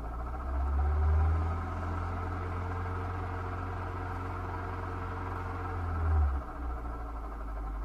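Hyundai/Kia G4FG 1.6-litre four-cylinder petrol engine, heard from inside the cabin, rising from idle to a raised steady speed just after the start, holding there about five seconds, then dropping back to idle about six seconds in. It is recorded for an unexplained extraneous noise from the engine.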